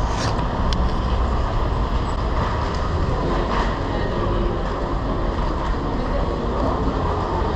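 Steady wind rumble and road noise from cycling through city traffic, picked up by a bike-mounted action camera.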